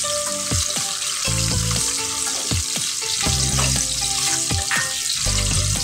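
Large potato chunks sizzling steadily as they fry in hot oil in a heavy-bottomed kadhai, turned now and then with a wooden spatula. Soft background music plays underneath.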